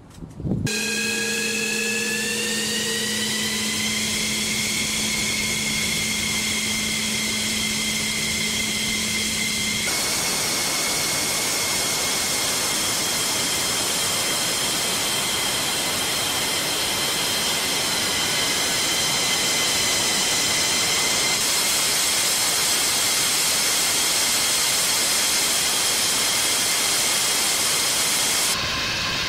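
F-15E Strike Eagle jet engines running on the ground: a loud high whine with several tones rising in pitch over the first few seconds, then holding steady over a rushing exhaust noise. The sound changes abruptly at about ten seconds and again near the end.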